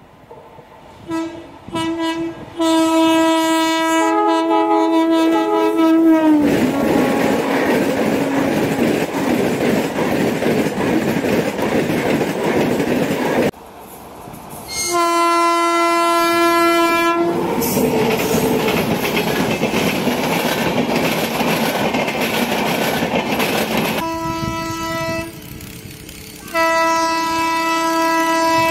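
WAP-7 electric locomotive air horn sounding: two short toots, then a long blast, followed by the rushing clatter of the train passing at speed. After an abrupt cut there is another long horn blast and more passing-train noise, then two more horn blasts near the end.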